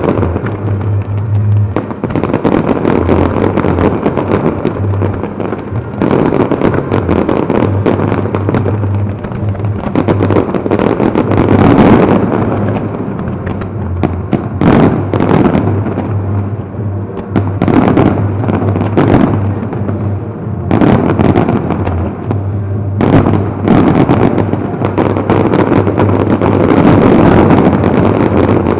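Aerial fireworks display: a continuous dense crackle and rumble of shells and rising comets going off, with many sharp bangs overlapping and several louder volleys.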